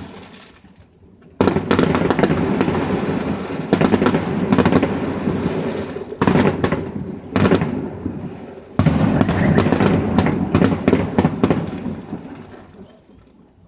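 Fireworks display: aerial shells bursting in a series of loud booms a second or two apart, each followed by rumbling echo and crackle, with a dense run of crackling near the end before the sound dies down.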